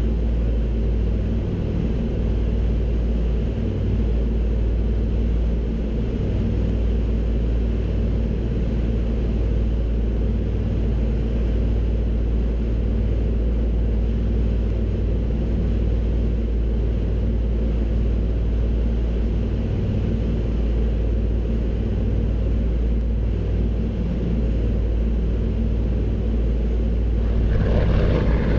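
Avro Anson's twin Armstrong Siddeley Cheetah radial engines droning steadily in flight, growing a little louder near the end.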